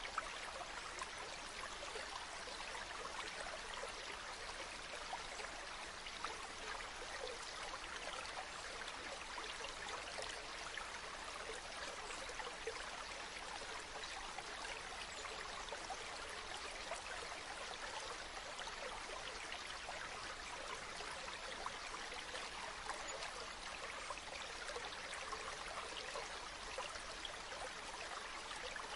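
Flowing water, a stream or brook running steadily over stones, with a light trickling and splashing texture.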